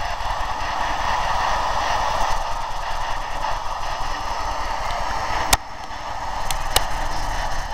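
Ghost box radio sweeping through stations: a steady hiss of radio static, broken by three sharp clicks in the second half.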